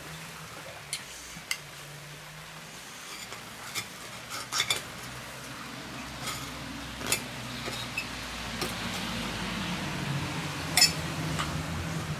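Knife and fork clinking and scraping on a plate while cutting a pizza: scattered light clicks, the loudest one near the end, over a low steady hum.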